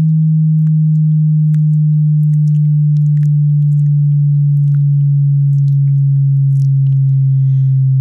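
A loud, pure low sine test tone slowly sweeping down in pitch, as used in a headphone test. Faint ticks are scattered over it.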